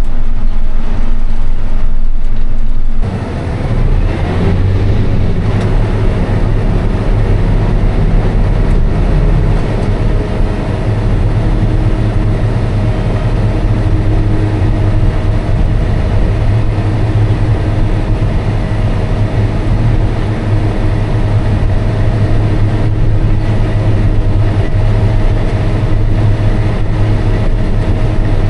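Farm machine's engine running steadily under way, with a constant low hum. A louder rumble cuts off abruptly about three seconds in.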